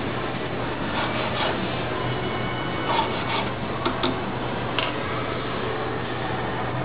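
Steady machine whir with a low hum, and a few light clicks and taps of small metal hand tools on a wooden jeweler's bench.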